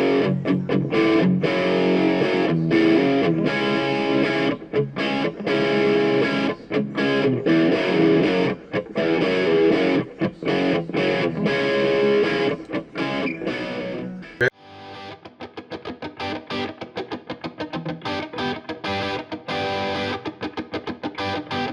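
Outro music with electric guitar. About two thirds of the way through it switches abruptly to a thinner section with a quick, even, chopped pulse.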